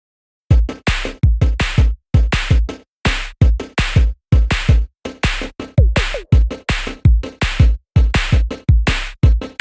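Electronic music with a punchy drum-machine beat and heavy bass hits, starting about half a second in after a moment of silence.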